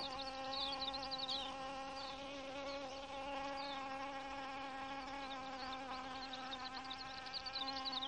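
Long-tongued hoverfly hovering, its wings making a steady, even buzz. Short, high, falling chirps come in clusters in the background, especially near the start and toward the end.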